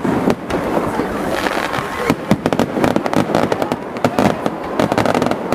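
Fireworks display: a dense, unbroken run of bangs and crackles from bursting shells.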